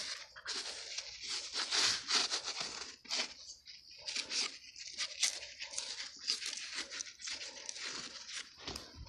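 Gloved hands rubbing and brushing soil and grit off a rusted metal box: a run of irregular scratchy scraping strokes.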